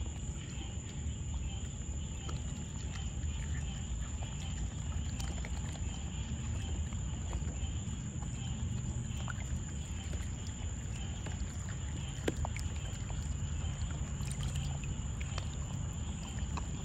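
Raccoons dabbling and feeling about with their paws in shallow water in a plastic kiddie pool, with small splashes and scattered clicks, one sharper click about twelve seconds in. A low steady rumble and a constant high-pitched whine run underneath.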